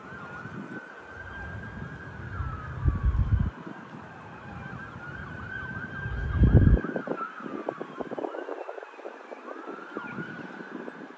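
Emergency-vehicle siren wailing, its pitch slowly rising and falling over and over. Two low rumbles of wind on the microphone, about three and six and a half seconds in, are the loudest moments.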